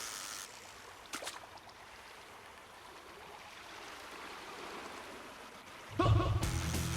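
Steady rushing of flowing water, with a short sharp click a little over a second in. Music comes in about six seconds in.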